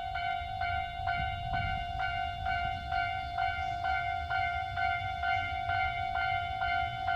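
Japanese railway level-crossing alarm ringing its repeating electronic "kan-kan" bell, a single steady tone struck about twice a second, while a train approaches or passes. A train's low rumble runs underneath, strongest a second or two in.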